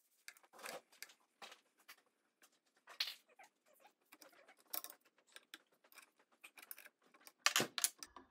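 Light, irregular clicks, taps and scrapes of metal tools and engine parts being handled, quiet throughout, with a short cluster of louder knocks near the end.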